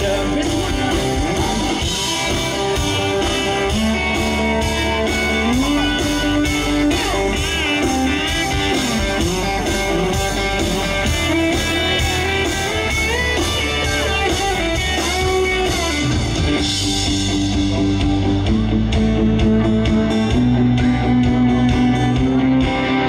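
Live country band playing an instrumental break with no vocals: an electric guitar lead with bent notes over drums and strummed guitars.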